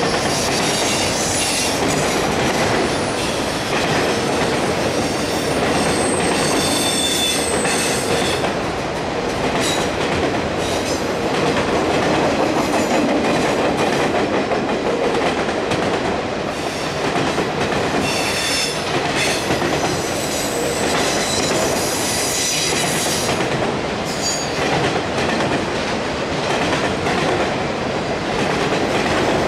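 Freight train of Union Pacific autorack cars rolling steadily past, steel wheels rumbling and clattering over the rail joints, with thin high-pitched wheel squeal coming and going several times.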